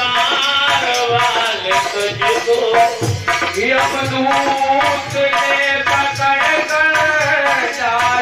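Amplified devotional kirtan music: a man singing a bhajan into a microphone over hand-drum beats and a melodic accompaniment.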